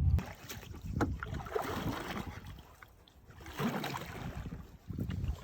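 Canoe paddles dipping and pulling through the water, several strokes in a row, with wind buffeting the microphone briefly at the start.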